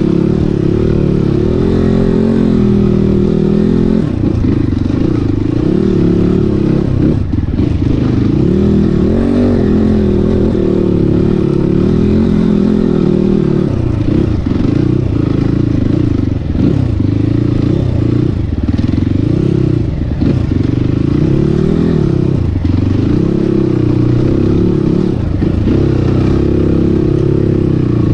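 Crossfire 250 trail motorcycle engine running loudly, its pitch rising and falling again and again as the throttle is opened and closed over a rough, slippery track.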